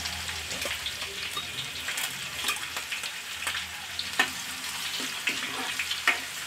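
Minced garlic, dried red chillies and whole spices sizzling and crackling in hot oil in a kadhai as a tempering, being fried until the garlic turns golden. A steel ladle stirs them, with a few sharper clicks, the loudest about four seconds in and about six seconds in.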